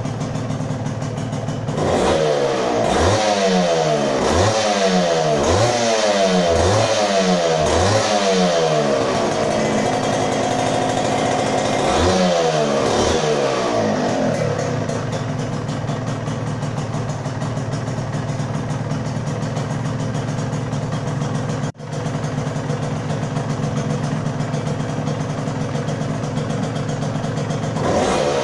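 Yamaha TZM 150's two-stroke single-cylinder engine, running again after a rebuild and ten years laid up. It is blipped on the throttle about once a second for several seconds, then twice more, then settles back to a steady idle.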